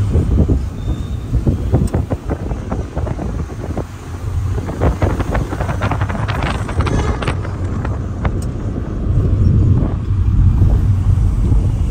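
Ride noise of a vehicle driving along a city street: a steady low rumble, with a cluster of rattles and knocks in the middle.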